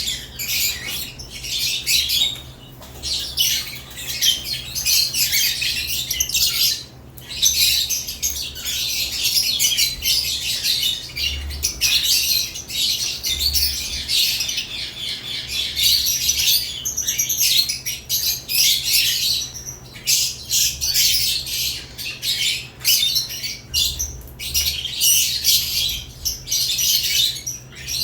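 Lovebirds chattering and squawking continuously in a cage: a dense, high-pitched flock chatter with brief pauses.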